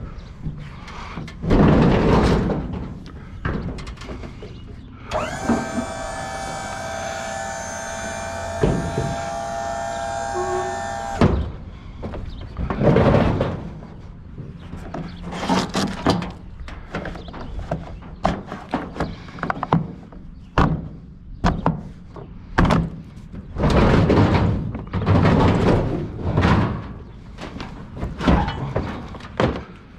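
A metal clothes dryer being moved by hand: repeated thunks, knocks and scrapes of its sheet-metal cabinet. About five seconds in, a steady high tone with several pitches sounds for about six seconds and cuts off suddenly.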